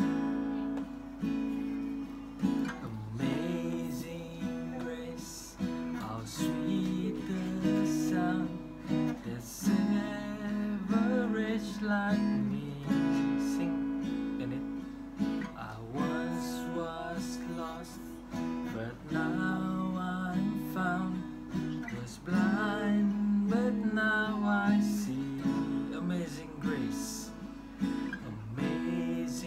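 Acoustic-electric guitar with a round back, strummed and picked in slow chords, with a voice singing a melody over it for much of the time.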